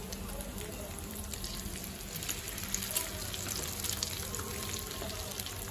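Marinated meat sizzling and crackling in an electric grill pan, a steady hiss scattered with small pops, with a few sharper clicks as metal tongs turn the pieces.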